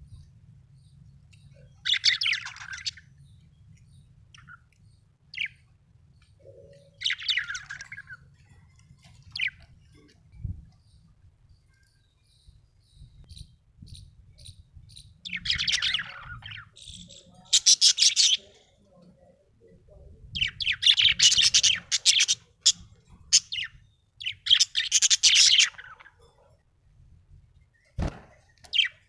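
Budgerigar chirping and warbling in bursts of a second or two, with soft single chirps in between; the chatter of a contented budgie. Two light knocks, about ten seconds in and near the end.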